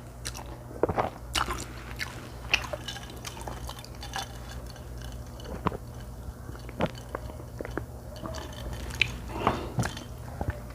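Close-miked eating sounds: a person chewing and biting food, with irregular wet mouth clicks and smacks.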